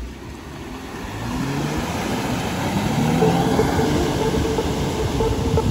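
Jeep Wrangler engine revving as it pulls away through mud and water, with the tyres churning and splashing. The engine note climbs in pitch and loudness over the first few seconds, then holds loud.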